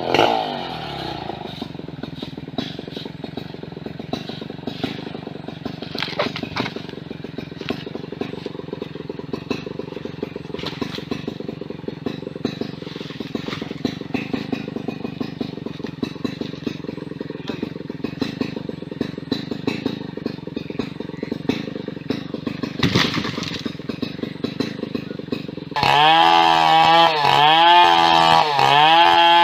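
Petrol chainsaw engine idling steadily with an even ticking beat, its revs falling away at the start. Near the end the throttle is opened again and the engine runs much louder, its pitch rising and falling.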